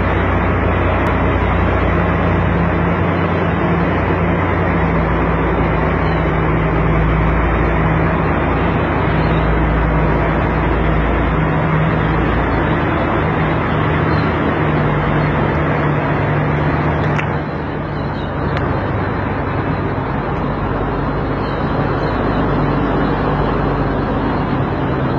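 Heavy truck's engine running steadily with a low hum, under a steady rushing noise; the sound drops a little about 17 seconds in.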